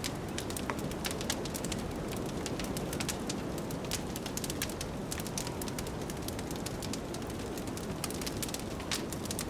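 Wood fire crackling, with frequent irregular sharp snaps and pops over a steady low rushing of wind.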